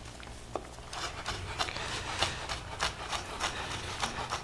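Chef's knife mincing ginger on a wooden cutting board: a quick, uneven series of taps, roughly three a second, starting about a second in.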